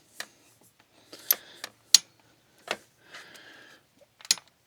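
Long-handled ratchet wrench tightening bolts: a string of sharp, irregular clicks with short rasping runs between them as the handle is swung back and forth.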